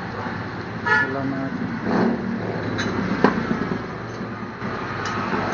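Road traffic in the background with a short vehicle horn toot about a second in, and a single sharp clink just after three seconds in.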